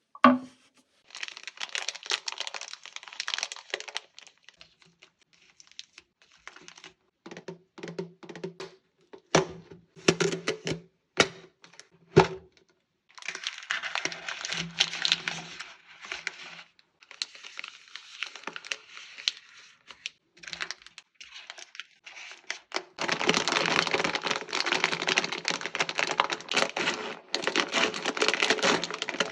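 Plastic candy and chocolate wrappers crinkling and rustling in bursts, with sharp clicks of sweets being handled and set down. The crinkling gets denser and louder for the last several seconds.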